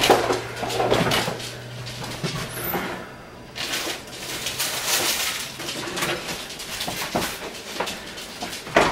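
Kitchen rummaging: a string of clunks and knocks like cupboard doors opening and closing, with a stretch of rustling about halfway through. A low hum runs under the first part and stops about three seconds in.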